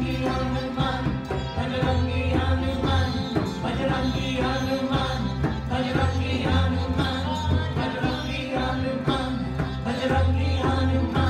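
Live kirtan music: harmoniums holding chords over an even tabla rhythm, with low bass notes, and voices singing the chant.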